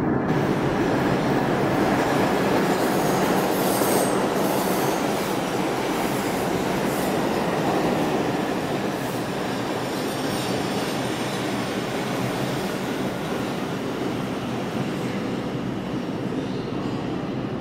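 New York City subway train on the Lexington Avenue line running past at speed: a loud, continuous rumble and rattle of wheels on rail. A brief high screech of the wheels comes about four seconds in, and the noise eases gradually through the second half.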